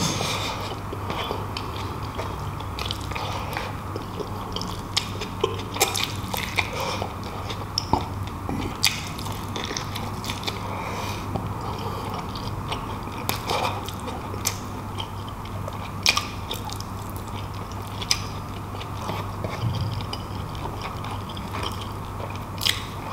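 Close-miked chewing and mouth sounds of a man eating beef bulalo and rice, with many short sharp smacks and clicks of the lips and mouth.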